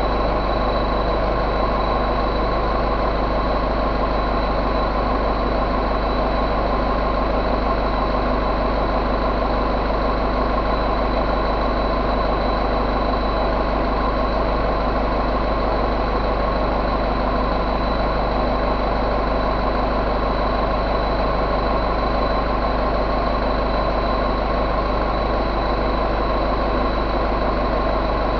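2007 Mercedes MBE904 four-cylinder diesel engine idling steadily, with a thin, steady high whine over the running.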